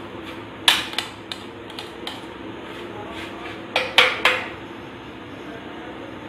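Metal spoon clinking against a steel mesh strainer and steel plate while fried moong dal is knocked out onto tissue paper: three sharp clinks about a second in and three more around four seconds in, over a steady background noise.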